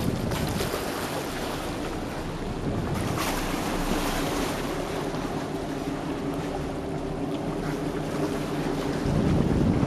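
Boat under way: a steady engine hum beneath the rush of water along the hull, with wind buffeting the microphone, which grows louder near the end.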